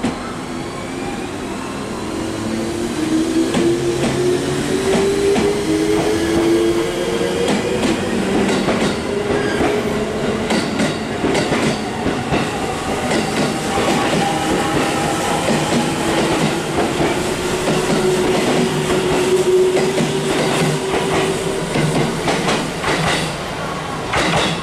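Eight-car JR Central 211 series-led electric train pulling out of a station platform. Its motors whine, rising in pitch as it picks up speed and again later as further cars pass, and the wheels click over rail joints.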